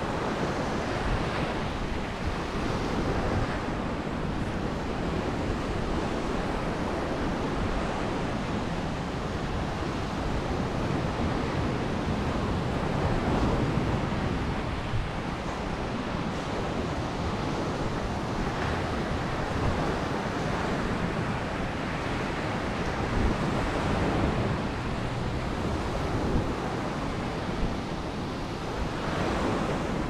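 Sea waves washing onto a sandy beach, a steady surf noise that swells and eases every several seconds, with wind rumbling on the microphone.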